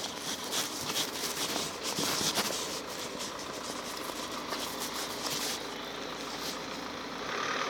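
Dense, gritty scraping and crackling of a plastic toy horse being moved over rough asphalt, with handling rub from a phone close to the microphone. The crackling eases off about five and a half seconds in, leaving a steadier hiss.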